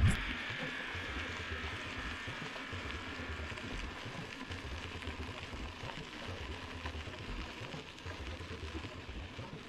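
Steady rolling noise of a bicycle ride, with an uneven low rumble from wind on the microphone.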